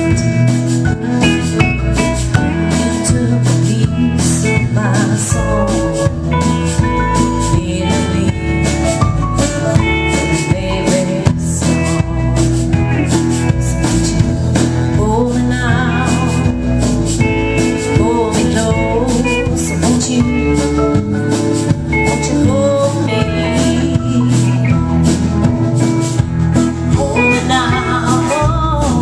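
Live band playing a song: a steady drum-kit beat under electric guitar, acoustic-electric guitar and bass guitar.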